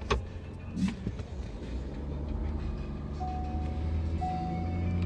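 Ford F-250's 6.7-litre Power Stroke V8 turbodiesel running low and steady as heard from the cab, with the truck creeping forward; a couple of clicks come in the first second. From about three seconds in, a single-pitched warning chime repeats about once a second.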